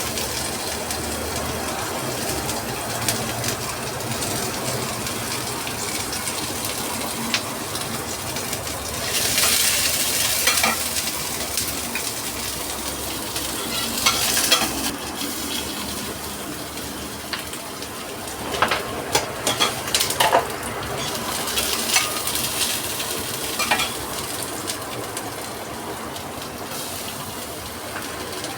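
Food frying in a pan, a steady sizzling hiss, with scattered clinks and clatter of utensils and cookware. It grows louder for a few seconds at a time.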